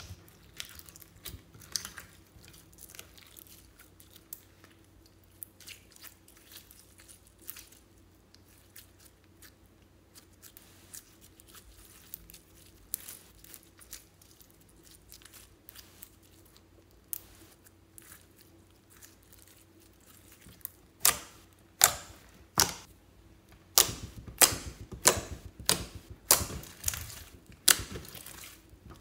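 Glitter slime full of sequins and beads being squeezed and kneaded by hand, giving soft sticky crackles and clicks. About twenty seconds in it turns to a run of much louder sharp pops as the slime is pressed and stretched and trapped air bursts.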